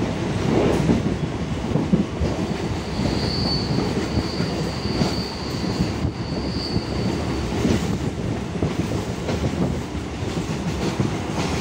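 ICF Medha electric multiple unit (EMU) train running on the rails, a steady rumble with scattered wheel knocks. From about two seconds in until nearly eight seconds, a thin, high wheel squeal rides over the running noise.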